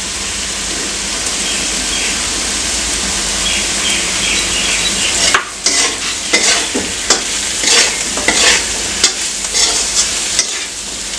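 Gatta (gram-flour dumplings) with onions and spices sizzling in oil in a metal kadhai. About halfway through, a metal spatula starts scraping and stirring against the pan in quick, irregular strokes.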